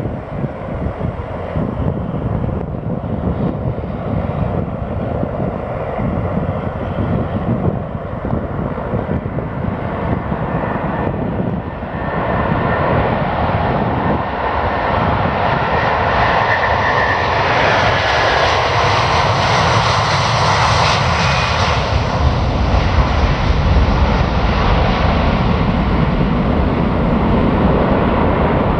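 Airbus A330-300's twin Rolls-Royce Trent 700 turbofans at takeoff thrust during the takeoff roll and climb-out. The roar grows louder as the jet runs past, sharpest about twenty seconds in, then settles into a deep rumble as it climbs away.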